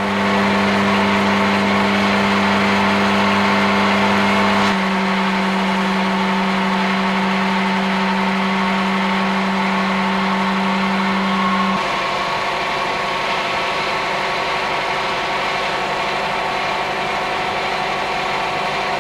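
Metal lathe running with a steady motor hum as the chuck turns the newly threaded lead screw. The hum's tone shifts twice, about five and twelve seconds in.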